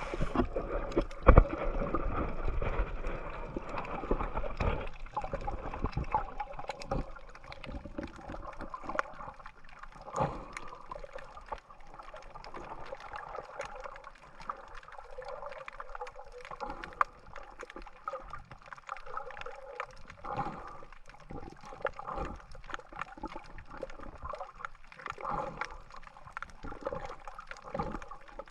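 Underwater sound from a snorkeler's camera: water gurgling and sloshing around the microphone, dotted with many small crackling clicks, with a sharp knock about a second in. The sound is louder for the first several seconds, then settles.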